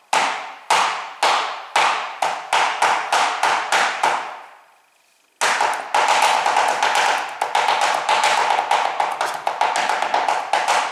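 Chef's knife chopping ham on a plastic cutting board: sharp knocks, at first about two a second and quickening, that stop about four seconds in. After a short pause, a fast, dense run of chopping.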